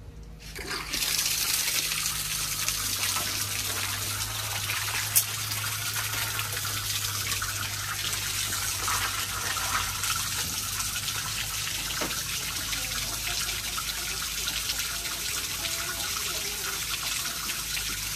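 Water running in a steady gushing stream, starting about a second in, with a low steady hum beneath it and a single sharp click about five seconds in.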